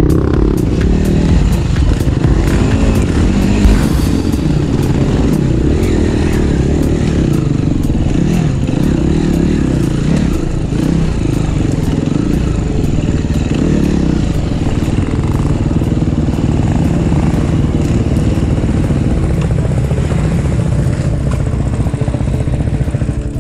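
Enduro dirt bike engine revving up and down as it is ridden over a rocky trail, heard up close from the rider's position, with one sharp knock a few seconds in.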